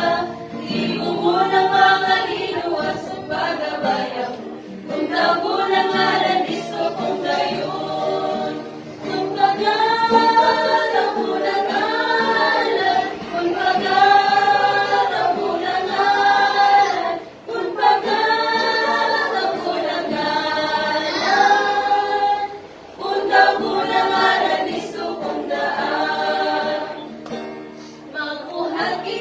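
Small church choir of mostly women's voices singing a hymn in Cebuano, line after line with brief breaths between phrases.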